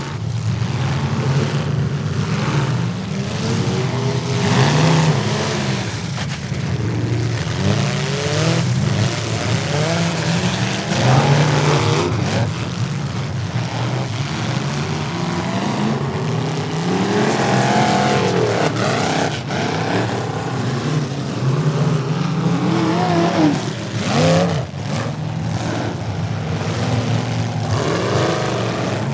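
Demolition derby cars' engines revving up and down hard, several at once, with occasional bangs of cars hitting each other.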